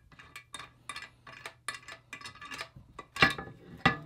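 Light clicks and knocks of hard plastic and metal parts as a resin 3D printer and its accessories are handled and fitted, with two louder knocks near the end.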